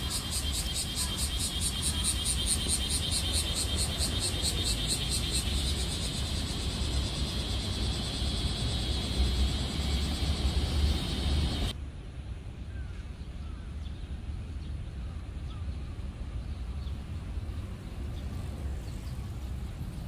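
Cicadas singing in the trees, a rapidly pulsing shrill buzz that smooths into a steady drone, over a low rumble. About twelve seconds in the song cuts off abruptly, leaving only the low rumble.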